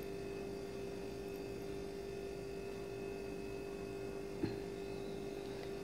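A steady hum on one tone, with a faint single tap about four and a half seconds in.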